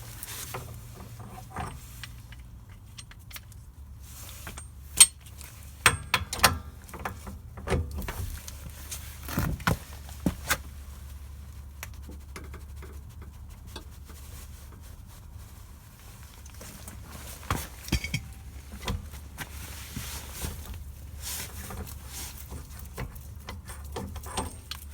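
Metal hand tools clinking and knocking at a rear wheel hub as a 40 mm socket is set on the axle nut and worked. Scattered sharp knocks and rattles, loudest about five to ten seconds in, over a low steady hum.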